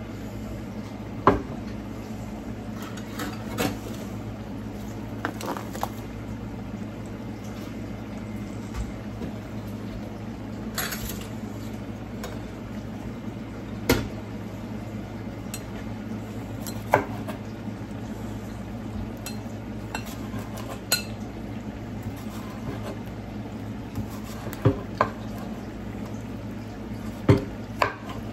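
Kitchen utensils and dishes clinking and knocking on a stovetop and pans: about ten separate sharp knocks spread out, the loudest near the end, over a steady low hum.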